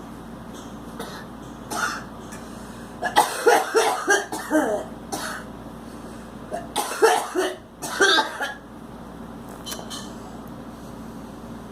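A girl coughing in two fits of several quick coughs each, the first about three seconds in and the second near seven seconds, with a single cough shortly before, over a steady faint hum.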